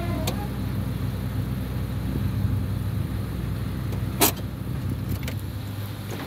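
Heavy diesel engines of sugarcane harvest machinery running steadily with a low hum, with one sharp click about four seconds in.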